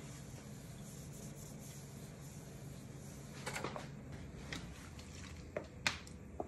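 A cloth rag rubbing over the steel ink disc of a platen letterpress, with a louder scraping stretch about three and a half seconds in. A few short light knocks follow, the sharpest near six seconds, over a low steady hum.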